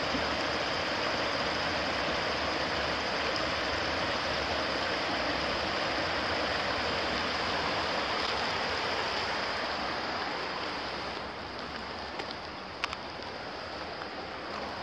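Small stream's water running over rocks in a steady rush. It becomes somewhat quieter about three quarters of the way through, with a single sharp click near the end.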